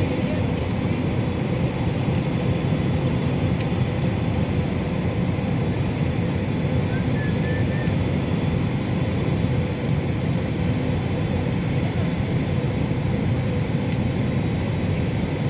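Steady cabin noise of an Airbus A320neo on approach to landing, heard inside the cabin over the wing: a constant rush of engine and airflow with a low, even hum and no change in level.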